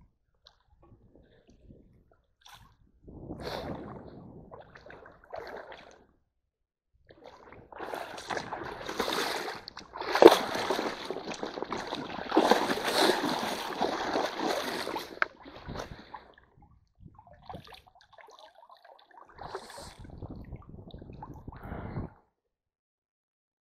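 Shallow stream water splashing and sloshing as a bamboo-framed hand net is swept through it and boots wade in the shallows, in irregular bursts, loudest for several seconds in the middle.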